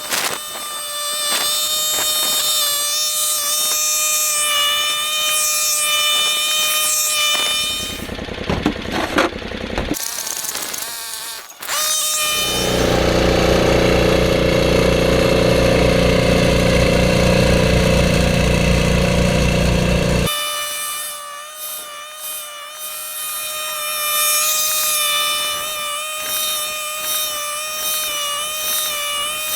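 1976 Ariens Sno-Throw snowblower with a five-horsepower Tecumseh Snow King single-cylinder engine running steadily at working speed, with a high steady whine. From about twelve to twenty seconds in, a louder, deeper stretch of the engine running is heard; just before it, the sound briefly drops away with a few clicks.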